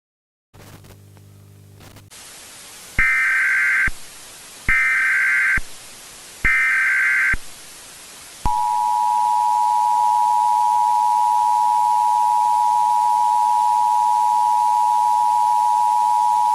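Emergency Alert System broadcast opening. A brief low buzz gives way to steady hiss, then three loud, roughly one-second bursts of SAME digital header tones. The two-tone EAS attention signal follows, held steady for about eight seconds.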